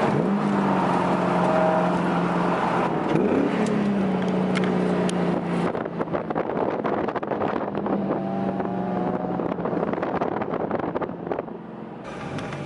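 Car engine running with a steady drone, its pitch sweeping up briefly about three seconds in.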